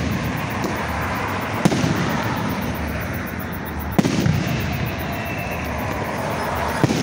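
Aerial firework shells bursting: sharp booms about a second and a half in, at about four seconds and again near the end, with a smaller bang early, over a steady background noise between them.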